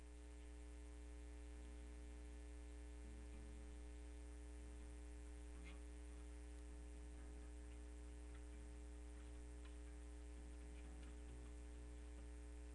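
Steady low electrical mains hum at a very low level, with a few faint ticks.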